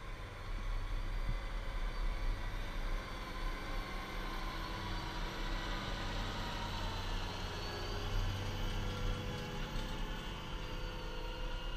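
Large farm tractor's diesel engine running steadily under load while pulling a land leveller through soil, with a faint higher whine that slowly rises and falls.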